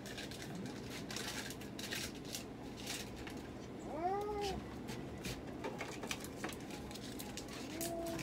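Domestic cat meowing: one drawn-out meow that rises and falls in pitch about four seconds in, and another that starts near the end. Light clicks and rustles of handling come before the first meow.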